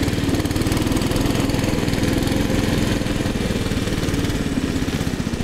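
A small gasoline engine running steadily at an even speed, its firing pulses fast and regular.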